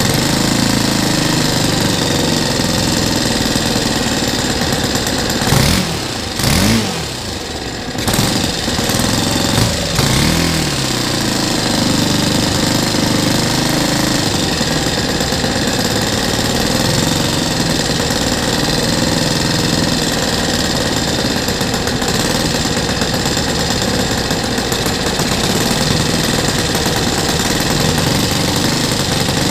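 Saito FG-30B single-cylinder four-stroke gasoline engine running during break-in at its factory needle settings. Its speed drops and picks up again a few times about six to ten seconds in, then it runs steadily.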